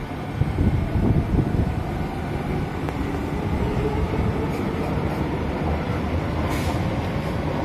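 SMRT C151A metro train pulling away on the elevated track: the rumble of the cars running on the rails, with a faint electric motor whine that slowly rises in pitch as it gathers speed. Gusts of wind buffet the microphone in the first second or so.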